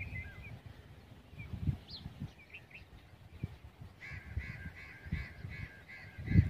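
Birds calling outdoors: a few short chirps, then from about four seconds in a run of repeated calls, roughly three a second. Low thumps on the microphone come in between, the loudest near the end.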